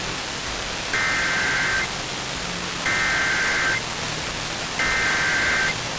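Emergency Alert System SAME header: three identical bursts of warbling digital data tones, each about a second long with a second's pause between, over steady radio static. The header is the coded opening of an alert broadcast, carrying the alert type, area and time before the voice message.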